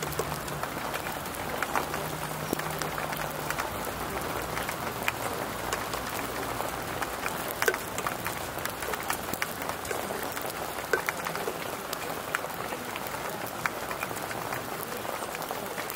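Shower of rain pattering steadily on a wet exposed-aggregate driveway, with many sharp ticks from single strikes scattered through it.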